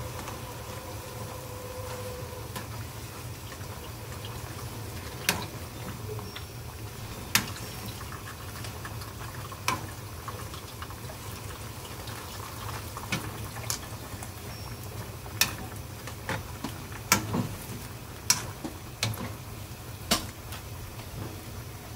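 Salted water boiling in a wide pan with napa cabbage leaves blanching in it, and several sharp clicks of metal tongs knocking against the pan as the leaves are turned.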